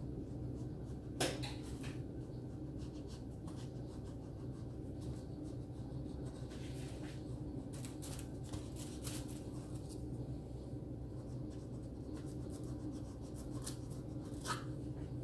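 Hands rubbing and pressing on a stack of thin baklava dough sheets: soft scattered rustles and light clicks over a steady low hum. A sharp knock comes about a second in and another near the end.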